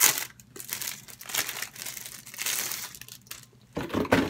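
Packaging crinkling and rustling as it is handled. There is a sharp rustle at the start and louder handling noise near the end.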